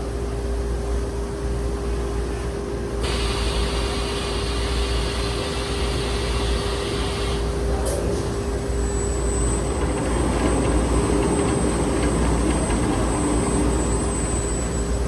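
Industrial CNC sheet laser system running with a steady hum and a constant mid-pitched tone. A hiss comes in about three seconds in and stops after about four seconds. A sharp click follows, then a thin high whine.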